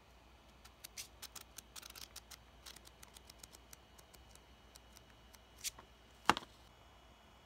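Pages of a thin paperback booklet being flipped by hand: a quick run of light paper clicks and rustles, then a few sparser ones and one much louder paper snap a little past six seconds in.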